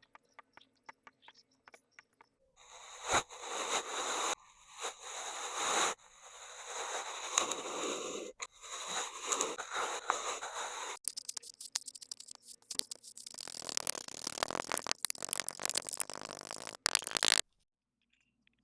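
Kinetic sand being cut and scraped with a tool: a long series of gritty strokes with brief pauses, starting a few seconds in and stopping abruptly shortly before the end. Faint light ticks come before it.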